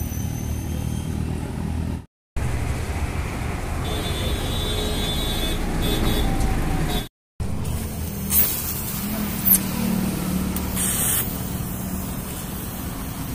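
Steady low rumble of motor traffic noise. It drops out briefly twice, and two sharp clicks come a little past the middle.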